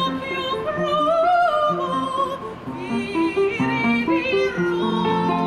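A woman singing opera, holding and sliding between high notes with a wide vibrato, over an instrumental accompaniment of short stepwise notes.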